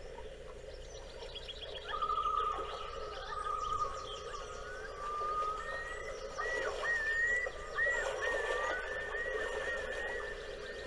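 Birds singing: a trilled call, then several warbling, looping calls over a steady background hum.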